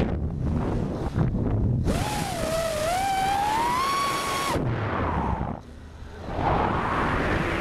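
Cobra 2204 2300KV brushless motors spinning 5-inch props on an FPV freestyle quadcopter, whining with a pitch that rises and falls with the throttle. The whine drops out at the start and again about halfway through, leaving wind rushing on the onboard camera's microphone.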